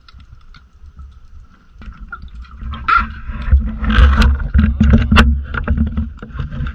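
A diver's breathing heard underwater: a low gurgling rumble with sharp clicks that swells from about two and a half seconds in. Before that there is only a faint steady hum.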